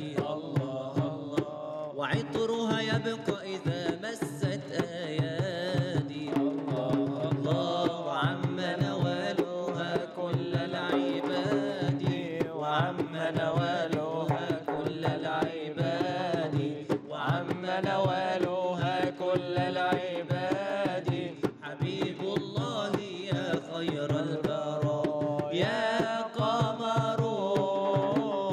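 Islamic devotional song (inshad): a man sings long, ornamented, wavering lines without clear words over a frame drum (daf) struck with the hands in a busy rhythm.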